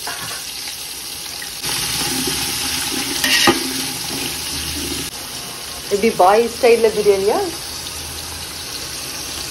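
Steady hissing kitchen cooking noise, with a sharp click about three and a half seconds in and a short burst of voice around the sixth and seventh seconds.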